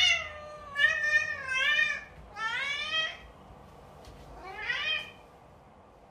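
Long-haired domestic cat meowing repeatedly, about five meows in quick succession, some rising in pitch and some falling, with the last one about five seconds in.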